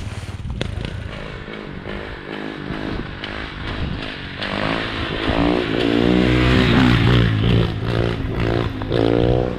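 Car engine running, then revving hard in a run of rising and falling sweeps from about halfway in, as the car is driven hard for a drift.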